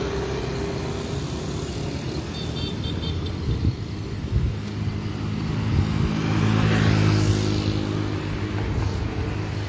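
Road traffic passing: the steady hum of motorcycle and car engines, with a car driving close by about seven seconds in, its engine and tyre noise swelling and then fading.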